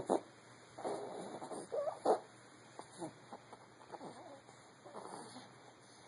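Sleeping newborn baby's noisy breathing: a string of short, snuffly breaths about once a second, some with a brief squeak, the loudest near the start and about two seconds in, softer after.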